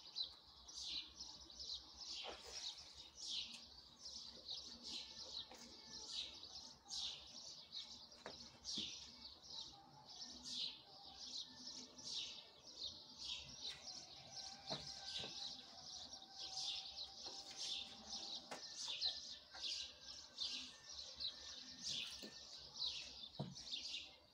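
A small bird chirping over and over, short falling chirps at about two a second, faint.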